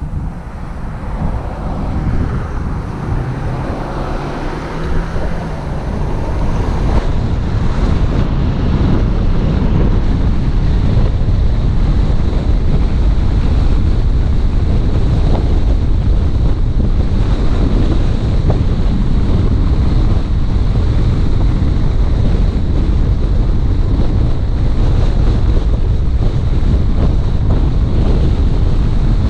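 Wind buffeting the microphone over the low rumble of a moving car, with no speech. It gets louder about six seconds in and then holds steady.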